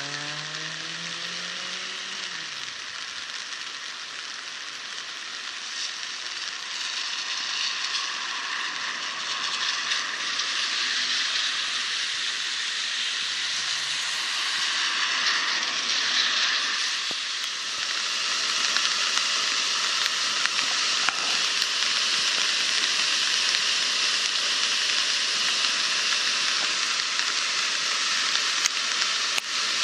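Muddy floodwater rushing down a swollen creek after heavy rain, a steady hiss that grows louder about halfway through as storm water gushes out of a culvert into churning whitewater.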